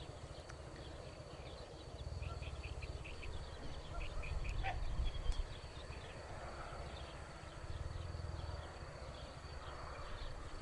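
Open-field ambience: wind rumbling and buffeting on the microphone in gusts, with scattered short bird chirps.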